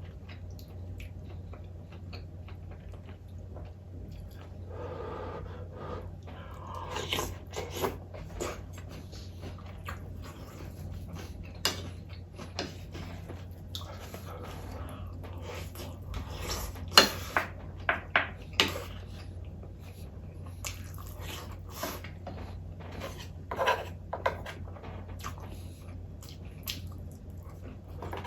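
Close-up chewing and eating sounds, with several sharp clicks of utensils against dishes, over a steady low hum.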